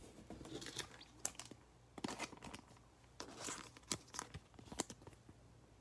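Faint, intermittent crinkling and tearing of foil trading-card pack wrappers and cards being handled, heard as a few short rustles and light clicks spread through.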